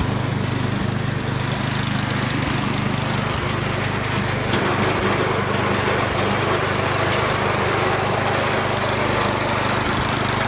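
Gasoline snowblower engine running steadily at a constant speed, being tested to make sure it runs fine.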